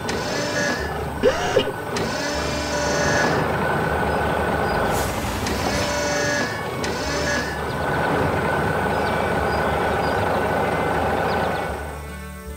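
Cartoon sound effects of a tractor engine running together with the whirring and clanking of its mechanical claw arm, with two sharp clanks about a second and a half in. The sound fades out near the end.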